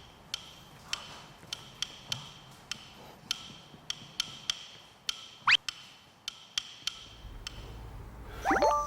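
Hollow wooden percussion taps, about one or two a second in an uneven pattern, each with a short bright ring. About halfway through comes a single quick rising whistle-like slide, and near the end a cluster of whistle slides rising and falling.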